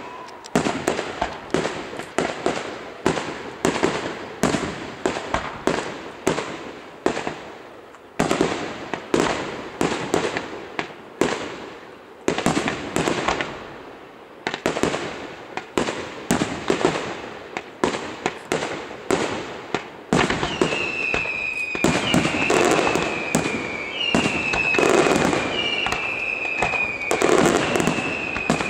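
Aerial fireworks display: shells and rockets going off one after another with sharp bangs, one or two a second. About two-thirds of the way in, the firing gets denser and louder and a series of whistles joins in, each a short jump up then a falling glide, repeating about every second and a half.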